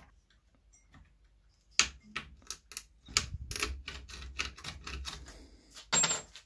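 Small metalworking hand tools clicking and scraping at a workbench: a run of irregular sharp clicks begins about two seconds in, with a low rumble under them in the middle, and a louder short scrape near the end.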